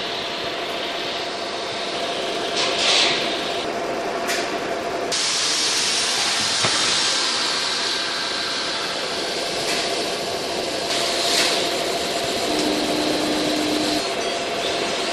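CO2 laser marking machine running as it engraves a logo into acrylic: a steady hiss with a faint steady tone under it. The hiss grows brighter for a few seconds in the middle and again briefly later as the pattern is marked.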